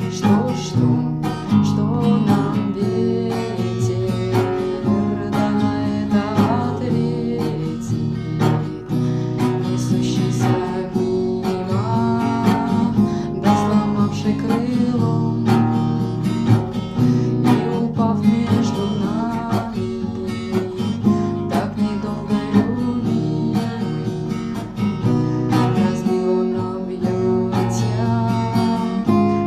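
Song music led by a strummed acoustic guitar.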